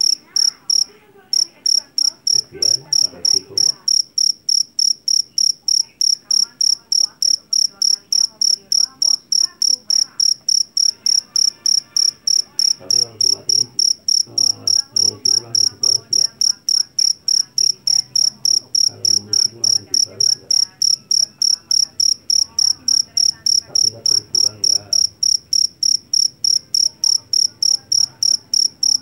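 Jeliteng field cricket (Javanese cricket) chirping loudly and shrilly in a steady, even rhythm of about three chirps a second, with a brief break about a second in.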